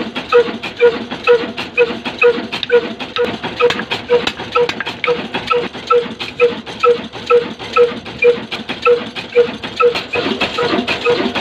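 Slow-speed 'Kala' diesel engine of about 18–20 hp running steadily at around 300 rpm, giving an even, ringing metallic beat about twice a second. Sharp irregular clicks and taps sound over it.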